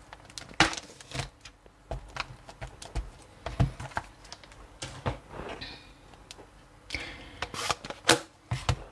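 Irregular clicks and taps of a rubber stamp and stamping supplies being handled on a table, with a couple of short rubbing sounds as the stamp is wiped clean.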